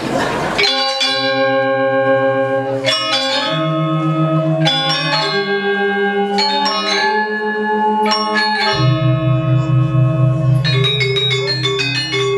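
Balinese gamelan music: bronze metallophones struck in a slow melody of ringing tones. A deep, pulsing gong-like tone enters about three-quarters of the way through.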